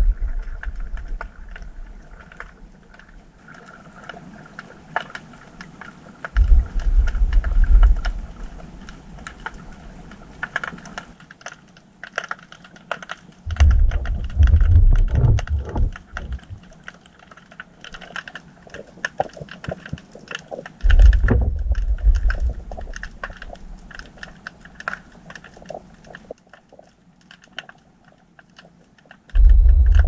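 Small swarm earthquakes, around magnitude 1, heard underwater as deep low rumbles of a second or two each, about five in all, over a steady dense crackle of clicks.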